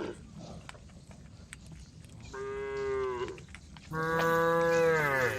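Cows mooing to call the herd: two drawn-out moos, the second longer and louder, each dropping in pitch as it ends.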